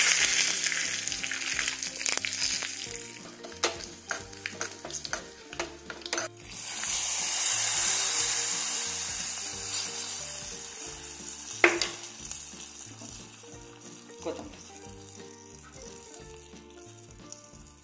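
Ghee tempering of mustard seeds, cumin and asafoetida sizzling and crackling in a small pan while a spoon stirs it. About six seconds in, the hot tempering hits the buttermilk curry with a sudden loud hiss that slowly dies away, with one sharp tap a few seconds later.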